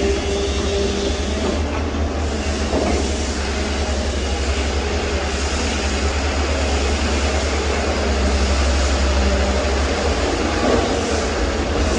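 Wheel excavator's diesel engine running steadily with a deep rumble and faint whining tones, with a brief clank about three seconds in and another near the end.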